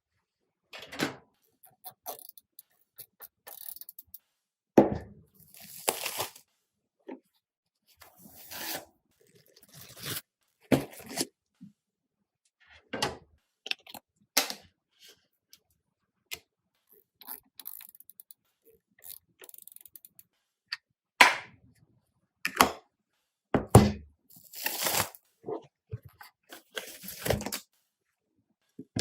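Irregular handling sounds of PC parts being assembled: short knocks, clicks and scrapes of components and case panels, spaced a second or two apart with silence between.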